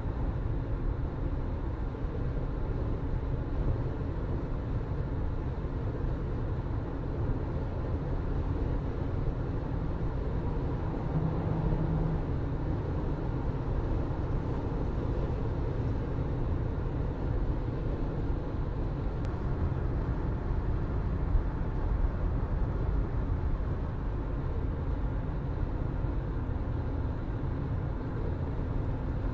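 Car being driven at a steady pace: an even, low rumble of engine and tyre noise on the road, with a brief low hum standing out about 11 seconds in.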